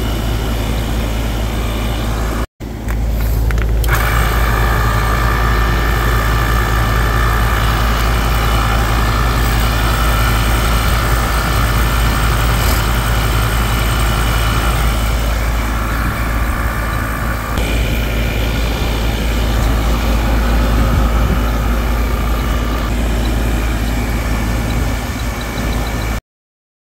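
Inficon Vortex Dual refrigerant recovery machine running steadily with a whine, pumping refrigerant out of the isolated condenser section, over a heavy low rumble. The sound drops out briefly about two and a half seconds in and cuts off suddenly near the end.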